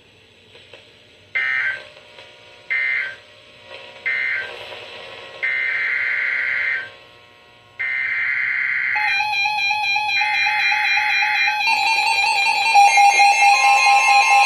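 Emergency Alert System data bursts: three short raspy SAME end-of-message bursts about a second and a half apart, then the longer buzzing SAME header bursts of the next alert. About two-thirds of the way in the loud two-tone EAS attention signal takes over.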